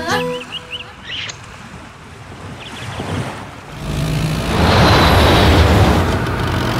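Bus engine running with a loud rushing hiss from about four seconds in, as the bus comes up alongside; before that, a faint hiss of road traffic.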